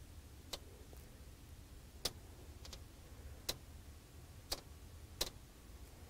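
Quiet room hum with about six short, sharp clicks at irregular intervals, made while the slide presentation is being worked and advanced.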